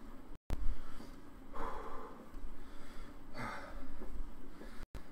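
A man breathing hard while pedalling an exercise bike, with several forceful breaths out, the strongest nearly two seconds in and again about three and a half seconds in.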